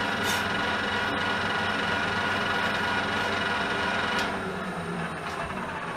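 Geared-head metal lathe running with its gear whine, the tool taking a light hand-fed cut across the end of a metal workpiece. About four seconds in the hiss of the cut fades and the sound drops a little, with the steady whine carrying on.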